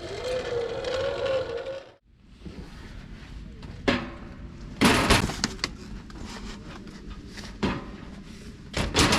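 A wavering tone for about two seconds that cuts off suddenly, then a run of sharp knocks and clatters, two clusters louder than the rest.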